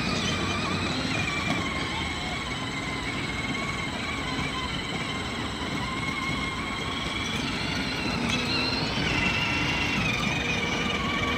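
Battery-powered ride-on toy jeep driving over brick paving: a steady electric motor whine, wavering slightly in pitch, over the rumble of its plastic wheels.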